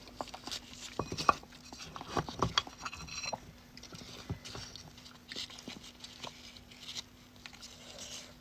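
Close-miked eating sounds of soft beef bone marrow: wet chewing, lip smacks and sucking, in short irregular clicks and smacks.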